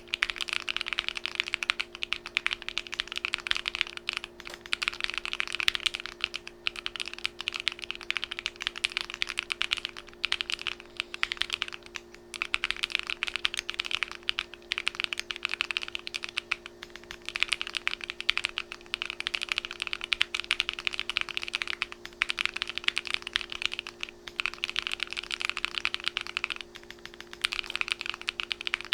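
Fast typing on a hand-built Alice-layout mechanical keyboard: a dense, continuous run of key clacks, broken by a few brief pauses.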